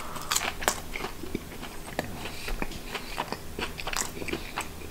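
Close-up chewing of a battered, deep-fried mussel, the crisp batter crunching in irregular bites.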